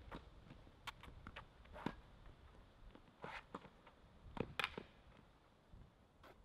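Faint, scattered sharp knocks of a tennis ball being struck and bouncing, spaced roughly a second or more apart.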